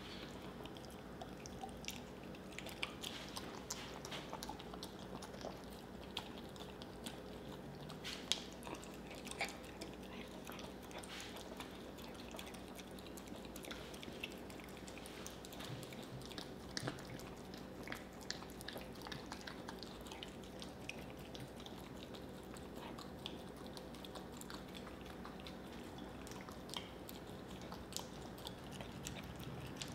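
Mini whoodle licking and smacking its lips and jaws on a sticky mouthful of peanut butter: irregular wet clicks and smacks throughout.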